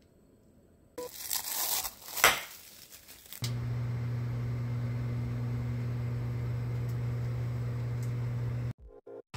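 Crinkling rustle with a sharp click about two seconds in, then a microwave oven running with a steady low hum, which cuts off abruptly near the end.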